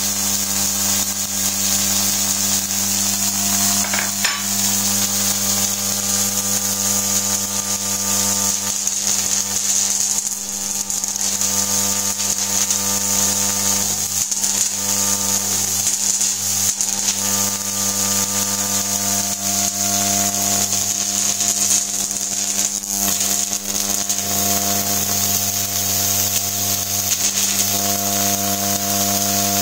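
Solid-state Tesla coil in continuous-wave mode, its arcs buzzing steadily at the 100 Hz ripple of the unfiltered full-wave-rectified mains feeding it.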